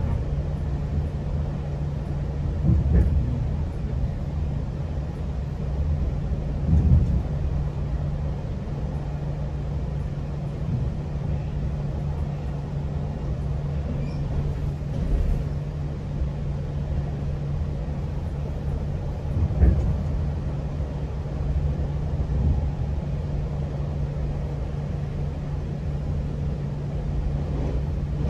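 GO Transit commuter train running along the track: a steady low rumble and hum, with a few heavier low thumps scattered through it.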